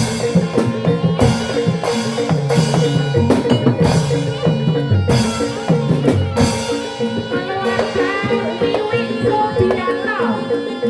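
Barongan Blora gamelan accompaniment played live: hand drums beating a steady rhythm with several loud cymbal crashes and ringing metallophone tones, and a gliding melodic line joining near the end.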